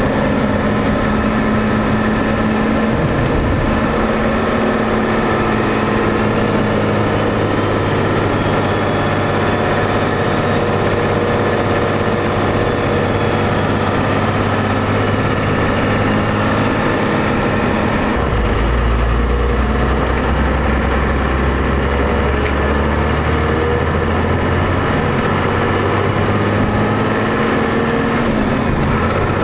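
Pickup truck's turbo-diesel engine with compound turbos, heard from inside the cab, running steadily while towing a trailer. About two-thirds of the way through, a deep low drone comes in and holds until near the end as the engine load or gear changes.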